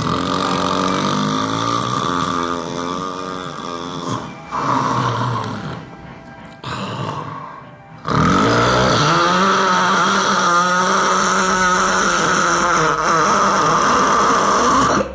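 Loud snoring with wavering, pitched tones. It fades and breaks off between about five and eight seconds in, then comes back loud and more even from about eight seconds in.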